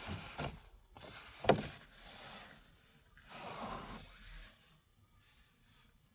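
Rustling and rubbing as things are handled, in several short swishes, with one sharp click or knock about one and a half seconds in.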